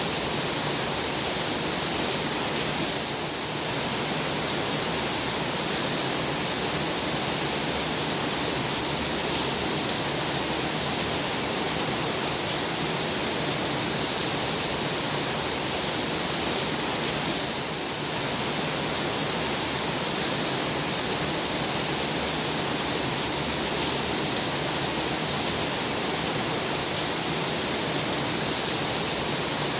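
Heavy rain falling steadily as a dense, even hiss, easing very slightly for a moment twice.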